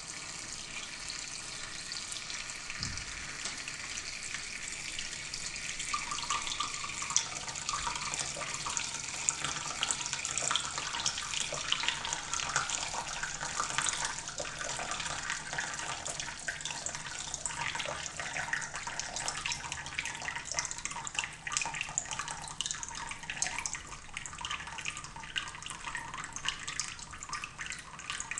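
Water sprinkling through the holes of a small cup onto packed bare soil as simulated rain: a steady trickle and patter of many fine drops.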